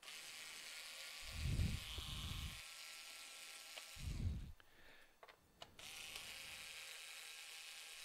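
Small cordless electric screwdriver motor running in two stretches, the first about four seconds and the second starting near the three-quarter mark, backing out the screws of a laptop's base panel. Low handling thumps are heard during and just after the first stretch.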